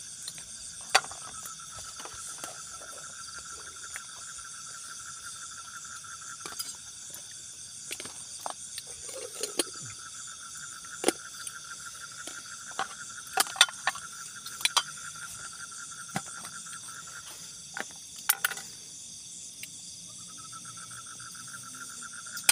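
Night insect chorus: a steady pulsing trill with a high hiss above it, the trill pausing for a couple of seconds near the end. Sharp clinks and taps of plates and cooking pots being handled and stacked sound over it.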